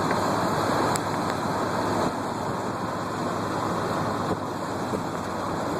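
Steady road and tyre noise of a moving car, heard from inside the cabin.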